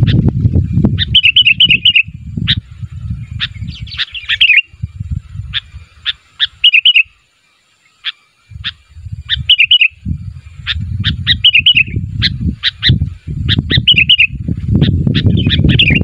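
Sooty-headed bulbul (kutilang) singing its calling song: short bubbly warbled phrases about every two seconds, with single sharp notes between them. Under the song runs a loud low rumble that drops out briefly about halfway through.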